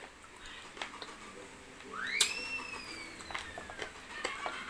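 A single whistle, about two seconds in, that sweeps quickly up and then slides slowly down over about a second and a half. Faint clicks of eating by hand from a plate sound around it.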